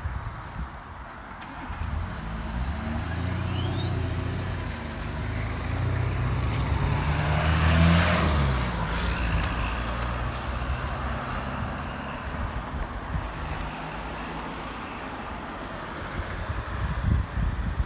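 A motor vehicle drives past: its engine and tyre noise build up, peak about halfway through, then fade away.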